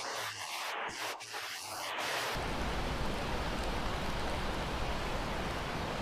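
Steady rushing noise of floodwater and rain, which changes abruptly about two seconds in to a louder, deeper rush.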